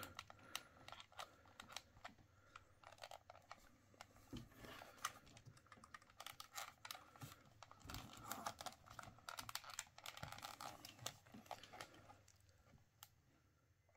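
Faint, scattered clicks and taps of hard plastic as a Hasbro 2002 Zam Wesell speeder toy is handled and turned over in the hands. The clicks die away near the end.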